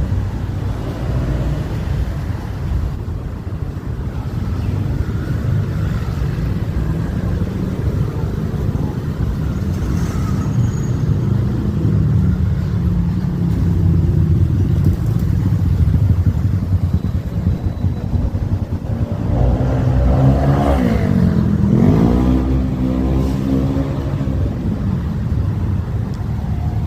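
Street traffic: car and motorbike engines running steadily. About twenty seconds in, one vehicle passes close, its engine pitch falling and then rising again.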